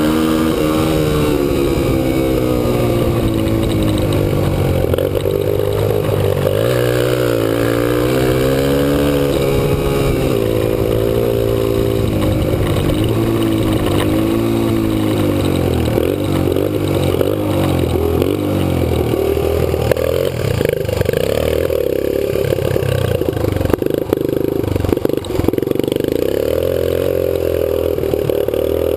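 Kawasaki KLX 125's single-cylinder four-stroke engine running under way, its pitch climbing and dropping back several times as it accelerates. Scattered knocks and rattles come in over the last third.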